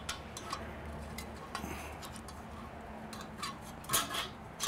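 Light metallic clicks and clinks as a sheet-metal ash pan holder bracket is handled and lined up on a kettle grill's bowl, with a few louder clinks near the end.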